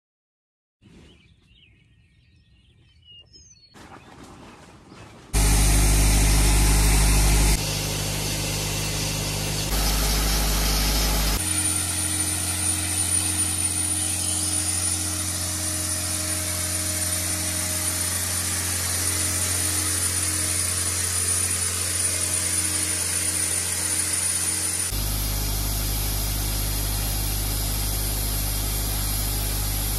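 Sodablasting rig running: an air compressor's engine gives a steady low hum under a loud rushing hiss of blasting air. It starts abruptly about five seconds in, after a few quiet seconds, and jumps in level several times.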